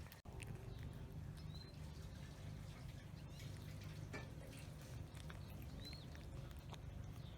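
Stray animals eating wet food: faint wet clicks of chewing and licking over a steady low rumble. Two short high chirps sound about a second and a half in and again near six seconds.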